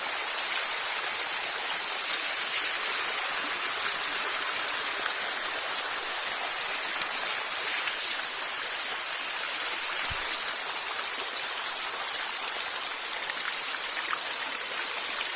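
Small waterfall splashing steadily: a constant rush of falling water, mostly high-pitched.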